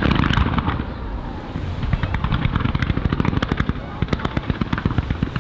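Aerial fireworks: a loud bang at the start, then a dense run of rapid crackling bursts, many a second.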